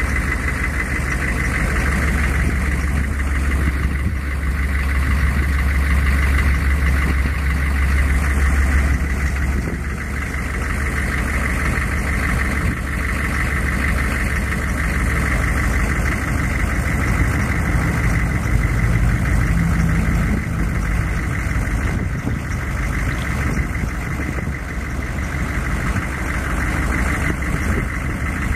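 The 6.5L turbo diesel V8 of a 1994 GMC Sierra 3500 bucket truck running steadily, driving the hydraulics that raise the Versalift insulated boom. The low engine sound is strongest in the first third and eases slightly after that.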